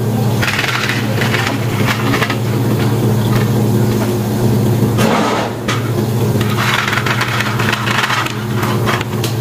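Ice cubes rattling and crunching as a plastic ice scoop digs into and handles ice for cold drinks, in several rough stretches, over a steady low hum.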